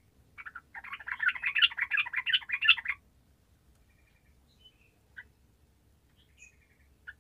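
Yellow-vented bulbul (trucukan) singing: a rapid, bubbly burst of many quick notes lasting about two and a half seconds, followed by a few short single chirps.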